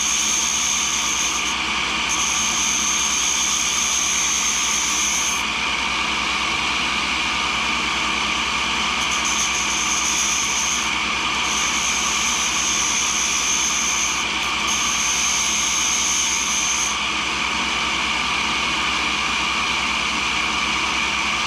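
Cincinnati No. 2 tool and cutter grinder running steadily as a brazed carbide tool is ground by hand against its diamond wheel, to grind a chip out of the tool's top. A high grinding hiss comes and goes in five stretches of one to three seconds, the last ending a few seconds before the end.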